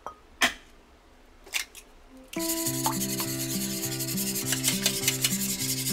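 Wire whisk beating egg in a stainless-steel tray: a fast, steady scratchy rubbing that starts a little over two seconds in, after two short clinks. Background music with a repeating bass line comes in with it.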